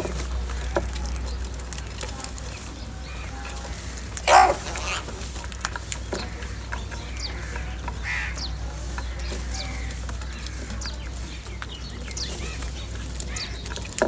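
House crows calling while they feed in a flock. One loud caw comes about four seconds in and a shorter call around eight seconds, with scattered short clicks and chirps in between.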